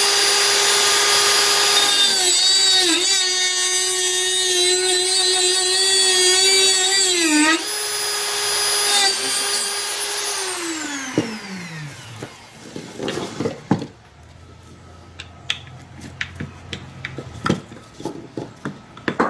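Dremel rotary tool running at high speed, its whine sagging and wavering as it cuts off the protruding end of a screw, then switched off and winding down with falling pitch about ten seconds in. Small clicks and knocks of handling follow.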